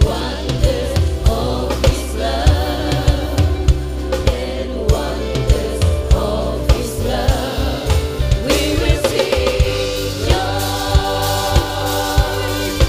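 Live church band and several singers performing a gospel-style song: voices singing through microphones over a drum kit keeping a steady beat, with electric guitar, bass and keyboard.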